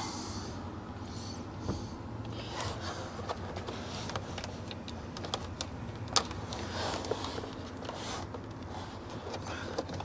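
Faint scattered clicks, taps and scrapes of hands working a coat-hanger wire through a car's dashboard, over a steady low hum.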